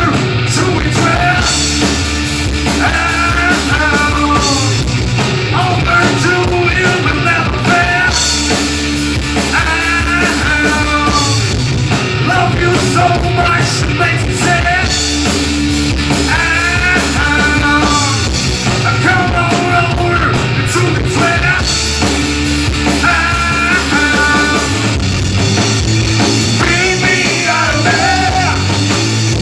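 Live rock band playing loud and steady, with distorted electric guitars, bass and drum kit and a melody line bending over the top.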